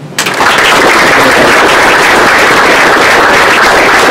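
Audience applauding. It starts abruptly just after the start and keeps up at a steady, loud level.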